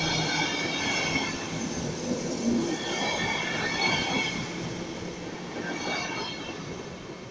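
PKP Intercity passenger coaches running past at speed: a steady rail rumble with high-pitched wheel squeal that comes and goes. The sound fades in the last couple of seconds as the train moves away.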